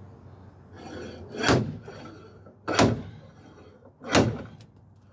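Slide hammer bolted to the front wheel hub of a 2001 Toyota RAV4, its sliding weight struck against the end stop three times, about every second and a half: three sharp knocks pulling the hub out to replace the front wheel bearing.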